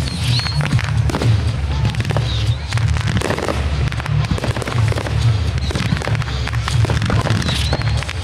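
Aerial fireworks going off in quick succession: many sharp bangs and crackles, one after another, over music with a heavy, steady bass.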